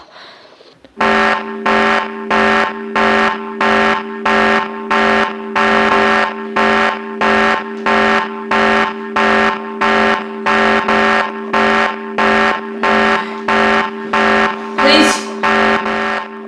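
Electronic alarm starting about a second in, beeping steadily about three times every two seconds over a constant low drone.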